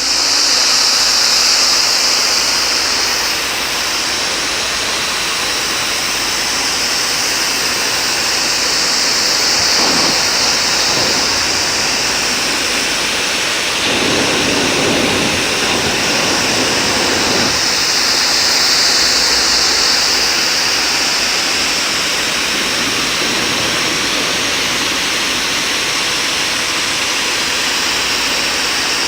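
GreenWorks 1800 PSI electric pressure washer running, its 25-degree nozzle blasting a steady, loud jet of water onto the deck. About halfway through, the spray takes on a deeper rush for a few seconds.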